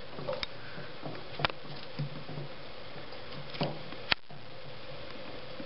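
A few short, sharp clicks and taps, about four, spaced out, from small metal parts and a tool being handled while a wire is soldered to a model locomotive's pickup. Under them runs a steady faint hiss.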